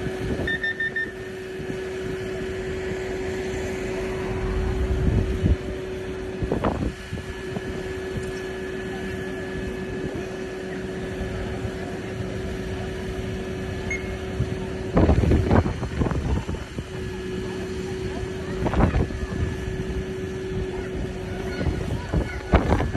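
Volvo FE turntable ladder's diesel engine running steadily with a constant hum while the ladder is in use, driving its hydraulics. A few short louder sounds break in about a third of the way in, around two-thirds in, and at the end.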